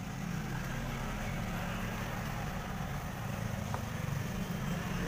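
Steady low engine drone, with a faint click about three and a half seconds in.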